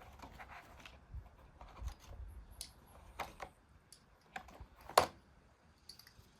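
Scattered light clicks and taps of a box of rifle cartridges and a round being handled, with one sharper click about five seconds in.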